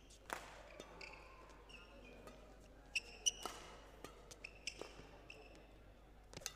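Badminton rally: sharp cracks of rackets hitting the shuttlecock and short, high squeaks of court shoes on the court mat. The loudest is a pair of quick hits about three seconds in.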